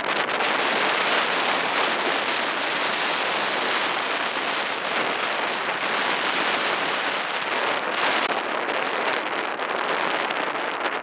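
Steady rush of a river in flood, running high after a typhoon.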